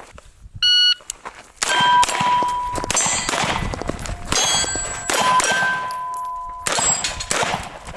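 Shot timer beeps once to start the string, then a run of gunshots follows, each hit on steel plate targets ringing out with a clang.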